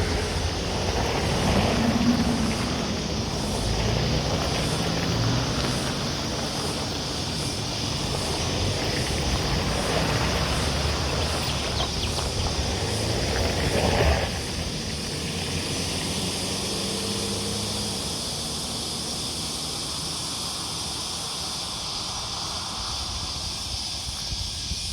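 A motor vehicle engine passing, with its pitch slowly bending as it goes. It grows louder to a peak about fourteen seconds in, then drops away suddenly, leaving a steady high hiss.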